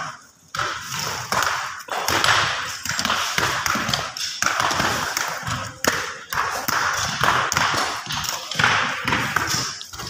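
Shovels and hoes scraping and scooping soil and broken stones in repeated strokes, with taps and knocks of the blades on stone.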